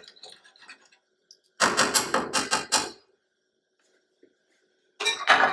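A metal spoon clinking against the rim of an aluminium pressure cooker: a quick run of about half a dozen sharp clacks over just over a second, then a few more near the end.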